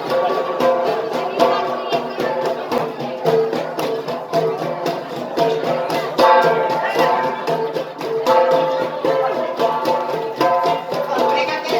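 Gangsa, flat bronze gongs, beaten together in a fast, even rhythm, their ringing tones overlapping.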